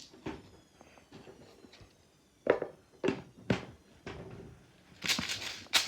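Handling noises: three sharp knocks in quick succession about halfway through, a softer one after them, then a burst of rustling near the end.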